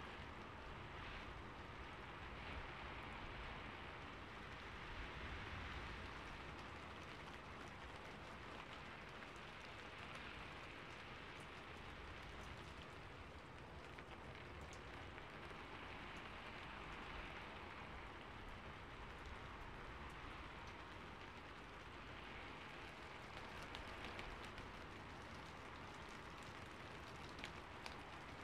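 Calm rain: a quiet, steady hiss of falling rain with faint scattered drop ticks.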